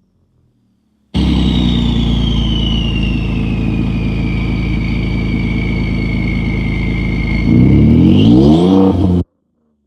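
Ford 3.5L EcoBoost twin-turbo V6 running with a loud turbo whistle that slowly falls in pitch, then the engine revs up near the end and the whistle rises with it. The sound drops out completely for about the first second and cuts off suddenly near the end, which the uploader assumes is the turbos being louder than the camera can handle.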